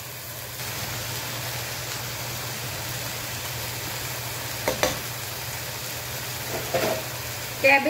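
Cabbage and bell peppers sizzling as they are stir-fried in a pan on a high gas flame, over a steady low hum. Brief knocks come near five seconds and again near seven seconds in.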